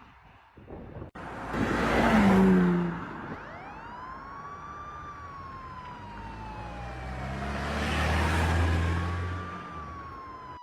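A siren wailing, its pitch rising then falling slowly, twice. A vehicle passes loudly about two seconds in, and an engine rumble swells near the end.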